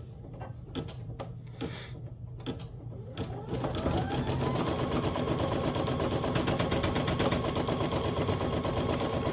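Brother Innov-is NS1250E embroidery machine stitching in the hoop. After a few scattered clicks, it starts stitching about three and a half seconds in, speeding up with a rising whine. It then runs steadily with a fast, even needle rhythm.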